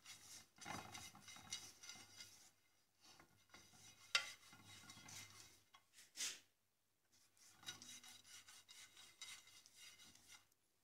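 An oil brush rubbing over the inside of a frying pan, greasing it lightly: faint, irregular brushing and scraping strokes in spells, with a couple of sharp clicks about four and six seconds in.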